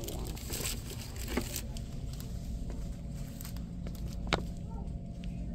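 Steady low background noise of a shop interior, with two sharp clicks of handling, about a second and a half in and again about four seconds in.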